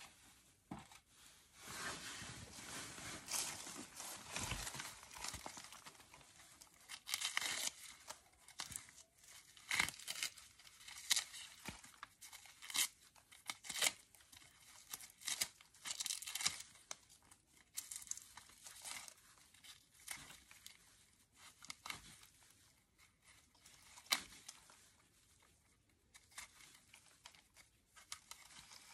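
Dry, papery outer scales of an amaryllis bulb being torn off by hand, with a knife scraping at the bulb and its dried roots: irregular crackling and tearing with scattered sharp clicks, busiest in the first half.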